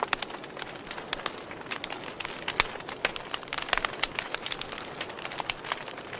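Wood fire burning in a fireplace: irregular crackles and pops over a steady hiss, with one sharper pop about two and a half seconds in.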